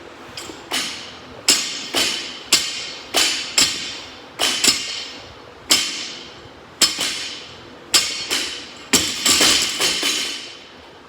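Repeated clanks and thuds of loaded barbells being set down on a gym floor, about one to two a second at an uneven pace, each trailing off in echo.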